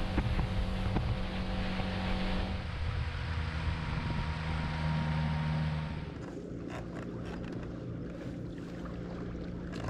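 Boat motor running under way with wind and water rushing past. About six seconds in it eases off and the rush falls away, leaving a quieter hum.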